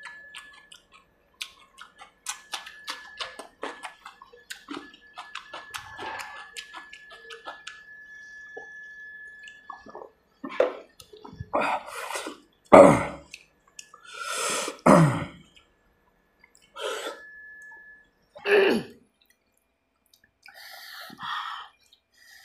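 Close-up eating sounds of a man eating with his hand: wet chewing and mouth clicks for the first half, then several short, louder vocal sounds, each dropping in pitch, the loudest about 13 and 15 seconds in.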